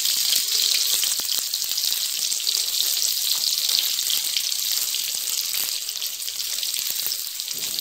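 Hot oil sizzling in a steel kadai as small stuffed brinjals are laid into it, a steady hiss with a few light clicks.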